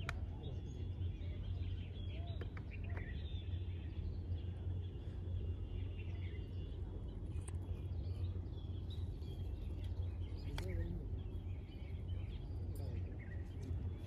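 Outdoor ambience: a steady low rumble with faint birds chirping now and then, and faint distant voices.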